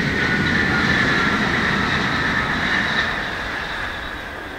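Tokaido Shinkansen Doctor Yellow (Series 923 inspection train) running past at speed: a steady rushing noise with faint high whining tones that drop slightly in pitch. It is loudest about a second in and fades over the last second or so as the train draws away.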